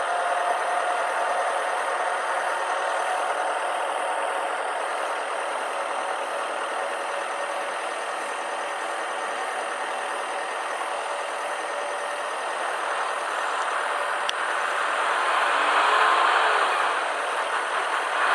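Heavy trucks' engines running in slow, stopped traffic: a steady road-traffic hum that swells louder about three-quarters of the way through.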